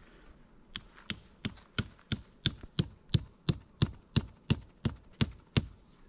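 A tent peg being hammered into the ground with a small hand tool: about fifteen sharp, evenly spaced blows, roughly three a second, starting just under a second in.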